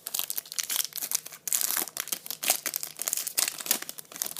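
Crinkling and tearing of a foil trading-card pack wrapper being ripped open, a dense, irregular crackle lasting about four seconds.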